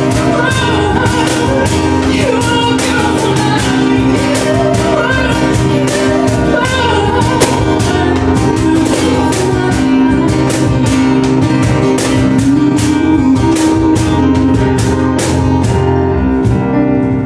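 Live acoustic band: a woman sings over a Roland FP-7F digital piano and acoustic guitar, while a cajon beats a steady rhythm of hand strikes.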